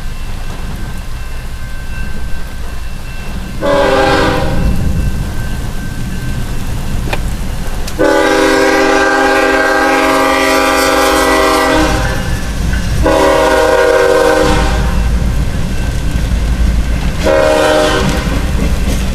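BNSF freight locomotive's multi-tone air horn sounding four blasts for the grade crossing: a short one, a long one of about four seconds, then two shorter ones. A steady low rumble of the passing train runs underneath.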